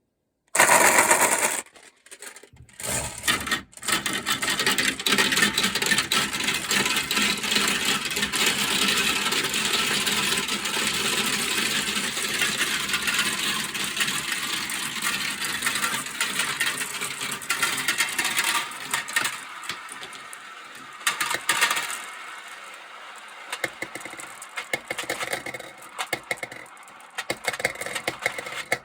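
Many marbles rolling and clattering down a plastic marble-run track. It starts with a loud burst of clatter, becomes a dense continuous rattle, and thins after about twenty seconds to scattered clicks and rolls.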